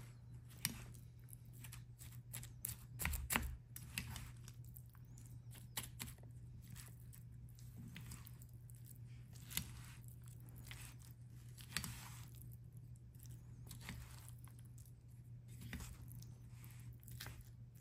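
Scattered soft clicks and rustles of handling by a steel dog bowl of food, over a low steady hum.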